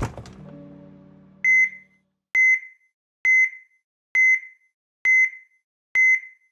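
A logo sting's low ringing tail fades out over the first second. Then electronic heart-monitor beeps start: a single short high beep about every 0.9 seconds, steady, six in all.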